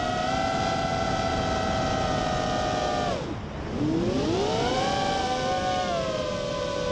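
FPV racing quadcopter's electric motors and propellers whining at steady throttle. About three seconds in the throttle is chopped: the whine drops sharply in pitch and level, then spools back up to a high whine.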